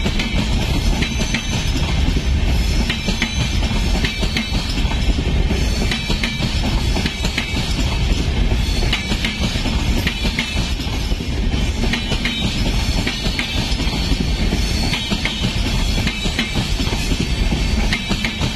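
Express train's passenger coaches rolling past on the adjacent track: a steady low rumble with wheels clicking over the rail joints in a clickety-clack.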